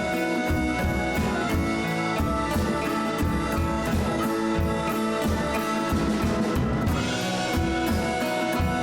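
Background music with a steady drum beat and sustained instrument tones.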